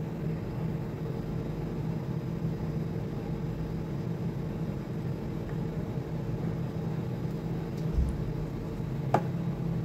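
Steady low mechanical hum, with a dull knock and then a sharp click near the end as the plastic housing of an air-conditioner condensate pump is handled.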